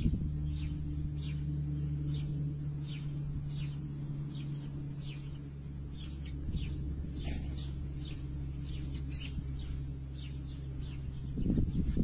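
Small bird chirping: short falling notes repeated roughly every half second, over a steady low hum. A burst of low noise comes near the end.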